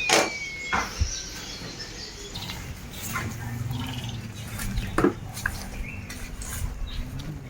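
Occasional light clinks and knocks of utensils against a cooking pot, with a short bird chirp near the start and a low steady hum in the background from a few seconds in.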